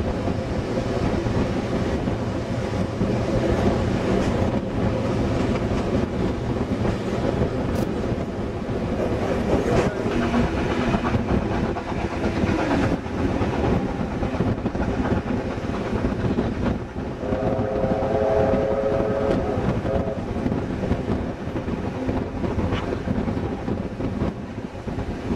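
Vintage carriages hauled by steam locomotive 3642 running round a curve, heard from an open carriage window: a steady rumble of wheels on rail with clicks over the joints. A held tone of several pitches sounds for about three seconds, a little past two-thirds of the way through.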